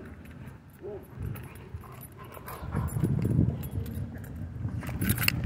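German Shorthaired Pointer vocalising while tugging and shaking a rope toy. Two short whines about a second apart come first, then a louder low growl around the middle.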